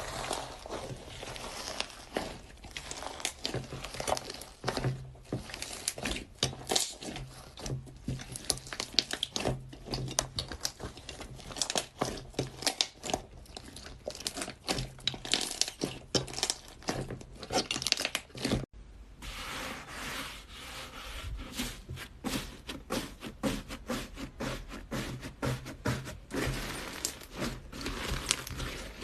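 Iceberg slime being pressed and squished by hand: its crusty hardened top cracks in dense, irregular crackles and pops, with a switch to another clip of the same kind about two-thirds of the way through.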